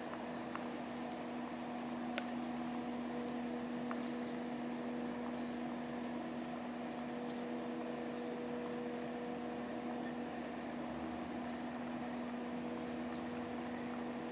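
A steady mechanical hum with several constant tones over a continuous hiss, and a few faint clicks.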